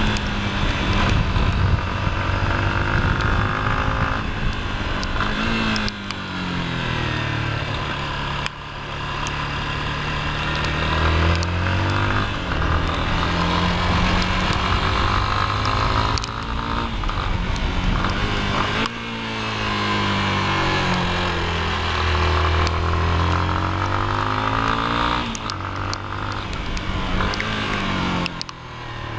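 Yamaha Lander 250's single-cylinder four-stroke engine revving under load as the bike is ridden on a wet track. The pitch climbs and falls repeatedly, dropping off as it slows about six and nineteen seconds in and then climbing again. A steady hiss of wind and spray runs behind it.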